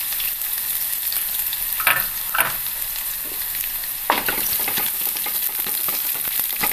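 Sliced shallots and dried red chillies sizzling in hot oil in a nonstick pan, a steady frying hiss. A few short scraping strokes, about 2, 2.5 and 4 seconds in, as a wooden spatula stirs them.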